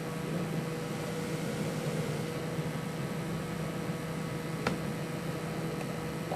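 Steady low hum of a running desktop computer, with a single sharp click about two-thirds of the way through.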